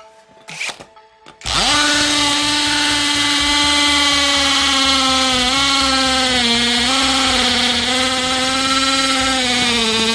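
Cordless hammer drill-driver, set to its second speed, boring into a concrete paving block. It is a loud steady motor whine that starts about a second and a half in, its pitch sagging a little under load midway.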